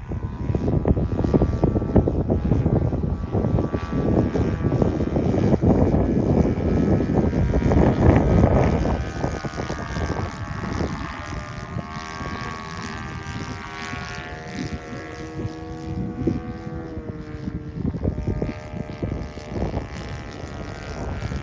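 OS FS-120 four-stroke glow engine in a quarter-scale RC Clipped Wing Cub, turning a 14x8 propeller and running smoothly as the model flies overhead. For the first half a gusty rush of wind on the microphone covers it. After that the engine's steady drone comes through clearly and drops in pitch about three-quarters of the way through.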